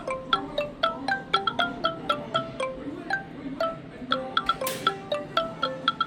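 A Samsung Galaxy phone ringtone playing: a fast, continuous run of short, bright pitched notes, several a second, with a brief hiss about four and a half seconds in.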